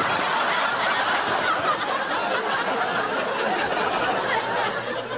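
Studio audience laughing, a sustained wash of many voices.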